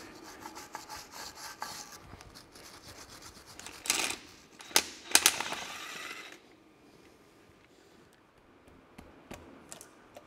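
Metal tool scraping and prying against the cast-iron final drive housing of an Allis-Chalmers D17 tractor, in quick rasping strokes at first, with a louder scrape and two sharp metallic clicks about four to five seconds in, then only faint occasional ticks.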